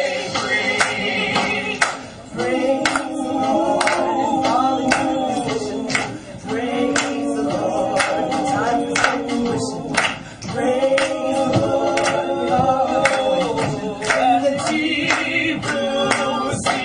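Vocal trio singing held close-harmony chords a cappella, in phrases of about two seconds with short breaths between them, while handclaps keep a steady beat of about two a second.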